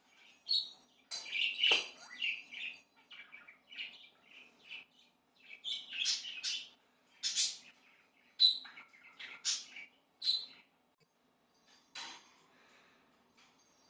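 Budgerigar chirping and chattering in quick, irregular runs of short high calls, with a sharp tap about twelve seconds in.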